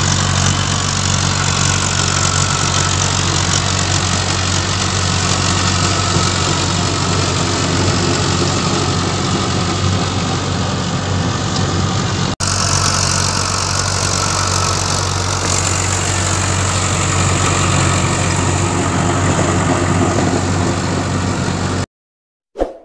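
Mahindra Arjun tractor's diesel engine running steadily under load while pulling a rotary tiller through the field. The sound breaks off for an instant about twelve seconds in, and near the end it cuts out, followed by a short ding.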